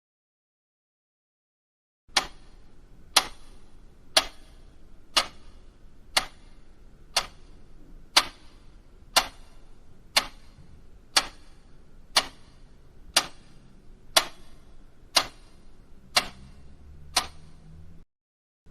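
Clock ticking, one sharp tick every second, about sixteen ticks in a row over a faint low hum and hiss. It starts about two seconds in and stops shortly before the end.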